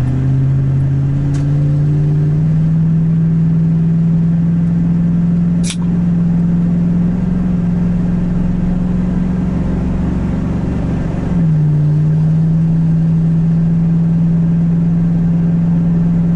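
Chevrolet Silverado's 6.0-litre V8 pulling under light throttle while towing a loaded car trailer, heard from inside the cab. The engine note climbs steadily, then drops with an automatic upshift about eleven seconds in and starts climbing again.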